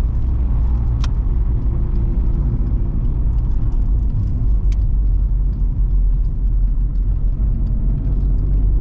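Steady low engine and road rumble of a Vauxhall Cavalier CD driving slowly, heard from inside the car, with a couple of faint clicks.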